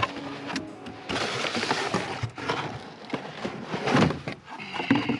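Cardboard box and packing rustling and scraping, with several sharp knocks, as a boxed solar fence charger is lifted out of its carton.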